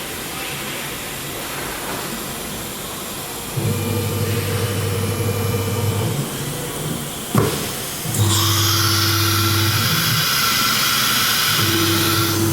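CNC router with automatic tool changer running: a low hum from the machine's motion starts and stops in blocks of a second or two. About seven seconds in there is a sharp click, then a loud hiss with a steady high whine that carries on.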